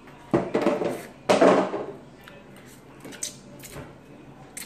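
A person slurping spicy instant noodles off a fork, two loud slurps in quick succession, then a few light clicks near the end.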